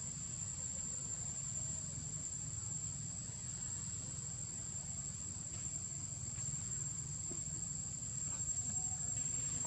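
Insects shrilling in one steady, unbroken high-pitched tone, with a low rumble beneath.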